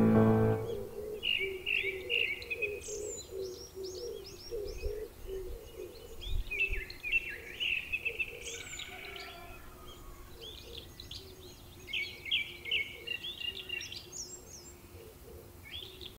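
Music ends within the first second, then birds sing and chirp in repeated bursts of quick high notes, with a fainter low note repeating underneath.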